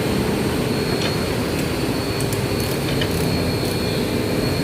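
Steady mechanical noise with a thin, constant high whine and faint scattered ticks.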